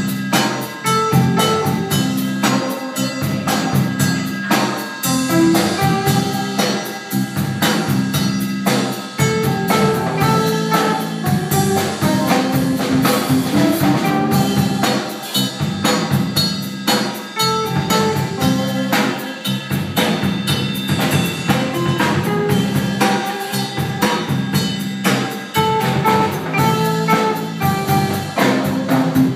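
Live blues band playing an instrumental passage, a drum kit keeping a steady beat under bass and other instruments.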